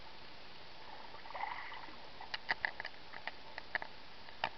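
Irregular sharp ticks, about a dozen in two seconds and the last one the loudest, over a steady hiss: water drops and grit flung off a gaffed octopus pattering onto the camera housing.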